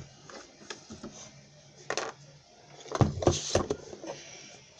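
Handling noises: a few scattered knocks and clicks of small objects being moved, with a louder cluster of clattering knocks around three seconds in.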